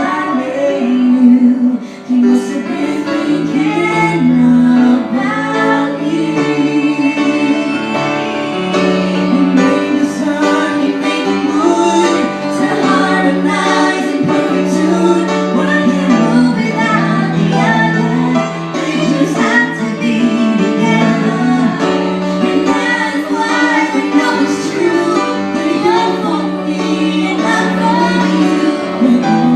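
A female vocalist singing a song with live instrumental accompaniment under a steady bass line.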